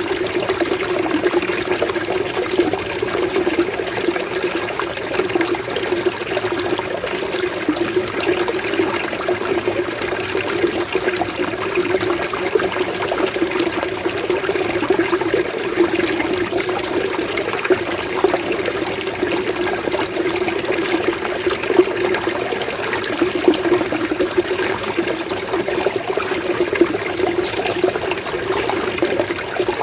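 Flowing water burbling and gurgling steadily, a small stream or water channel making a continuous bubbling 'kopokopo' sound.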